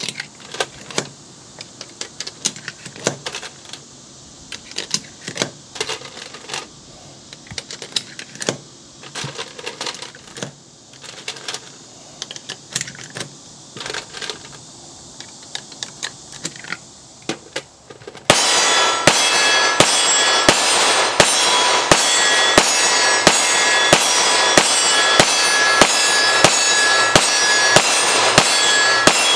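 9mm cartridges clicking one by one into a steel 17-round pistol magazine pressed with an UpLULA loader. About two-thirds of the way through, a loud, even run of sharp reports sets in, about two a second, with a ringing sound between them: the TriStar S-120 9mm pistol being fired rapidly.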